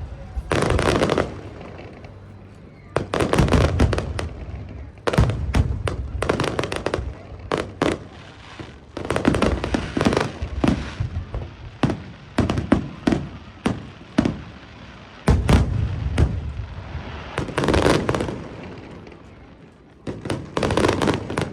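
Aerial fireworks display: shells bursting with deep booms and sharp reports, coming in clusters every few seconds with rapid crackling strings between them.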